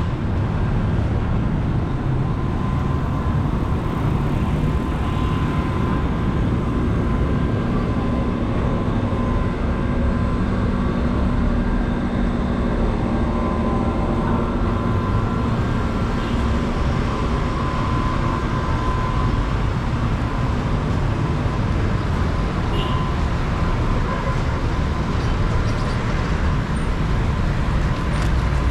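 A motor vehicle's engine running with road noise: a steady low rumble and a faint steady hum, unchanging throughout.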